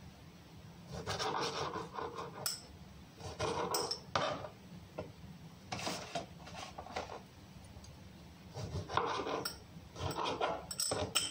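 Knife slicing through a tomato on a cutting board, in short irregular strokes with pauses between them.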